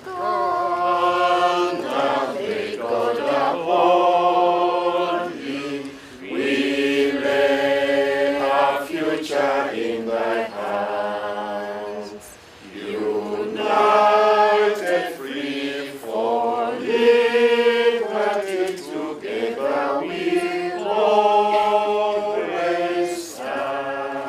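A group of people singing a song together without accompaniment, in long phrases with short breaks between them.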